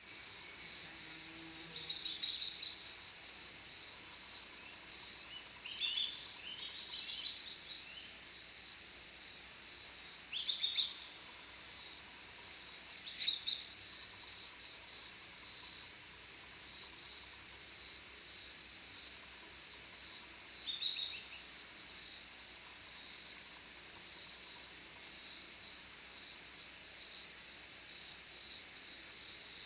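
A steady, high, even chorus of insects, with about five short bird calls cutting in over it, each one falling in pitch, scattered through the first two-thirds.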